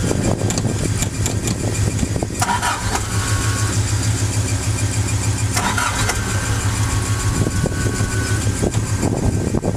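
Toyota 4A-GE four-cylinder engine running at a steady, fast idle, which the crew puts down to warming up.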